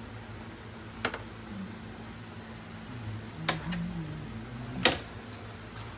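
Three sharp clicks or knocks of tools or parts being handled during wiring work, about a second in, midway and near the end, the last the loudest, over a steady low hum.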